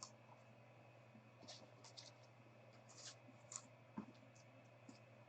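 Near silence, with faint scattered clicks and light scratching of trading cards being handled and slid over one another.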